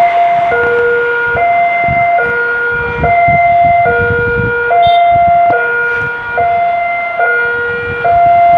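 Railway level-crossing warning alarm sounding its repeating two-tone signal, a higher and a lower note alternating, each held a little under a second. Beneath it runs a low rumble from the train passing the crossing.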